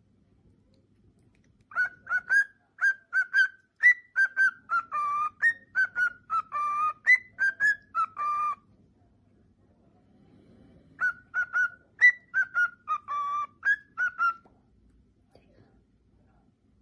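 Male lutino cockatiel singing its whistled song: two phrases of quick, clear whistled notes, with a few longer held ones, split by a pause of about two seconds.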